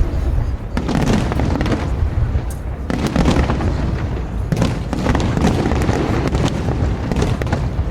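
Fireworks going off in quick succession: repeated bangs and crackling over a steady low rumble.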